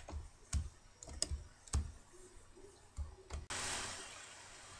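A handful of short, sharp clicks, about five spread over three seconds, then a steady hiss of noise that cuts in suddenly about three and a half seconds in.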